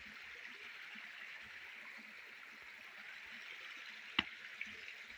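Steady rush of falling water from a waterfall, with one sharp click about four seconds in.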